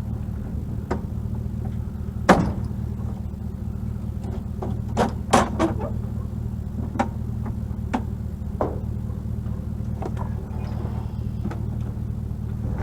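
Motor vehicle engine idling with a steady low hum, with several sharp knocks and clunks over it, the loudest about two seconds in.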